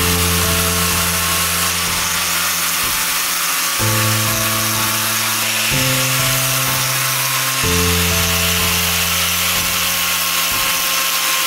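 Background music with sustained low chords that change every two seconds or so, over a steady high hiss of a power tool running.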